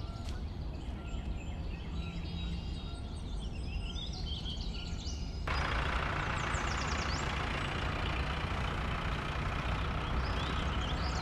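Birds chirping over a low, steady rural background, then about halfway through a tractor engine sound comes in suddenly and runs steadily, with birds still chirping above it.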